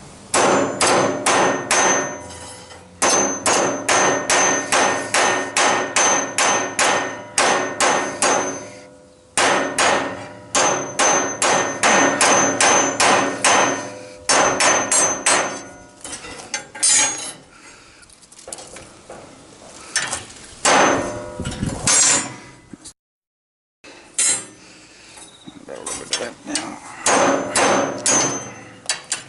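Hammer striking metal in quick runs of blows, about three to four a second, each hit ringing with a metallic tone. The runs are broken by short pauses, and about three-quarters of the way through there is a second of complete silence.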